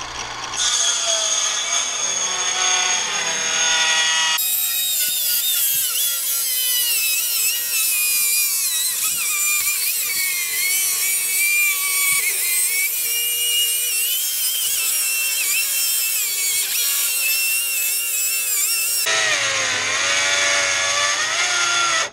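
Cordless circular saw, running in a guide track, ripping through a panel of wooden door boards. The motor spins up about half a second in, and the blade bites into the wood about four seconds in. It cuts steadily for some fifteen seconds, runs free for a couple of seconds after clearing the board, and cuts off at the end.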